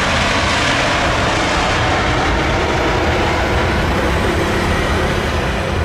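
Jet noise from a Garuda Indonesia Boeing 777-300ER's two GE90 engines as the airliner touches down and rolls out on the runway, spoilers raised: a loud, steady roar with deep rumble that grows a little stronger near the end.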